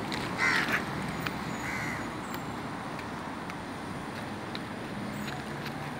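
Two short animal calls, the louder first one about half a second in and a fainter second one near two seconds, over steady background noise.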